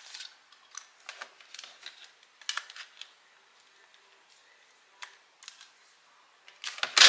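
Paper banknotes flicked and rustled as they are counted by hand, with scattered soft clicks. Near the end comes a louder burst of rustling as bills are handled on the desk.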